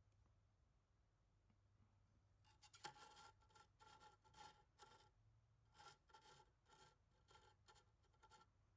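Faint whirring of an Ultimaker 2GO 3D printer's stepper motors, starting about two and a half seconds in as a quick string of short moves, each with a thin whine.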